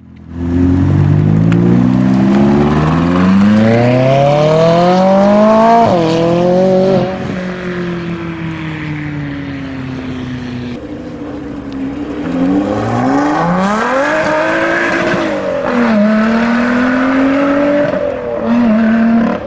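Sports cars accelerating hard away one after another, among them a McLaren and a Lotus Exige: engine notes climb in pitch and drop back at each gear change. The loudest pull is in the first seven seconds, with further shorter pulls after.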